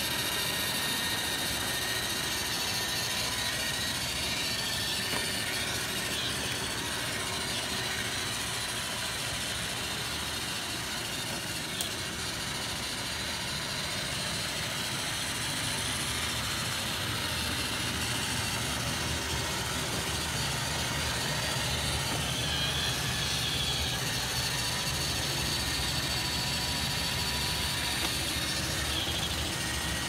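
Roomba robot vacuum running on carpet: a steady whir of its motors and brushes with a faint steady whine over it. A single click about twelve seconds in.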